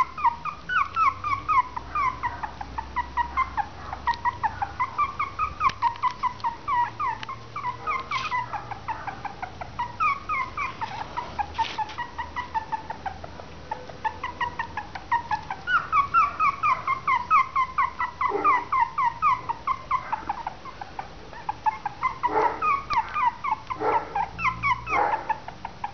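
Three-week-old Westie/Maltese cross puppies whimpering: short, high, falling cries, several a second, in long runs with brief pauses.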